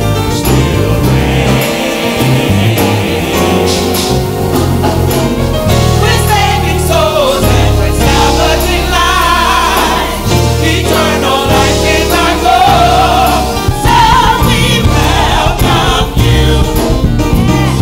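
Gospel worship song sung by a small group of singers on microphones, voices blending in harmony over a steady bass line.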